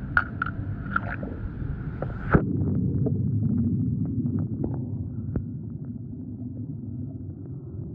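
A camera microphone going under the surface of a swimming pool: churning water hiss with a few small clicks, a sharp knock about two seconds in, then a muffled low underwater rumble with faint scattered clicks.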